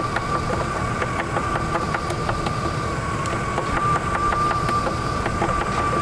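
Chevrolet Express van engine idling steadily, with a steady high whine over the running engine and scattered light ticks.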